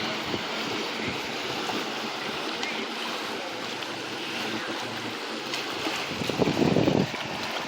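Steady wash of water and wind with the low hum of a passing motorboat. A short, louder burst comes about six and a half seconds in.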